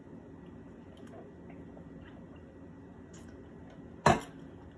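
Quiet room tone with a few faint ticks of food and utensil handling, then one sharp click or knock about four seconds in.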